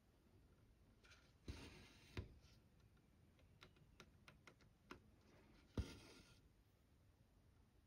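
Quiet hand cross-stitching: sharp little ticks as the needle is pushed through the fabric, each followed by a short scratchy rasp of thread being drawn through, with fainter ticks in between and the loudest tick about three quarters of the way in.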